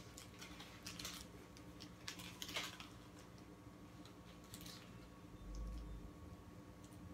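Quiet eating sounds: a fast-food sandwich's paper wrapper crinkling in a few short rustles, over a faint steady hum, with a soft low thud about five and a half seconds in.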